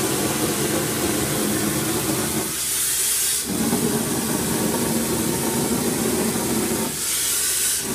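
Gunite being shot with compressed air: a steady mechanical rumble from the concrete line, broken twice by about a second of loud rushing air hiss.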